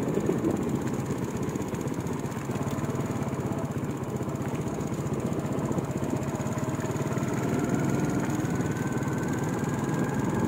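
Small motorcycle engine running steadily under the riders, heard from on board, its pitch rising a little in the second half as it speeds up.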